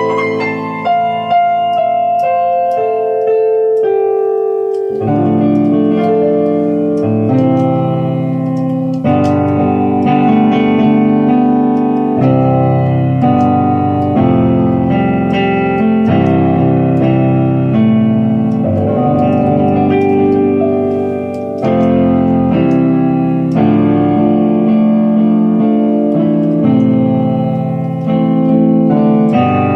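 Keyboard played in a piano voice: sustained chords under a melody, with low bass notes coming in about five seconds in.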